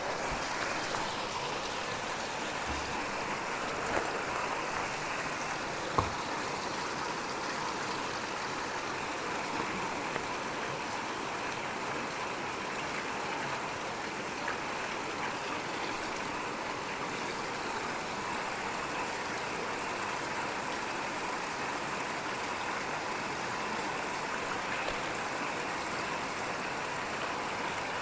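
Steady rushing of flowing water, an even hiss that does not change, with two faint knocks about four and six seconds in.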